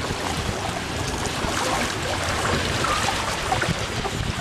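Water rushing and churning along a water-ride flume channel around the ride boat, a steady noise.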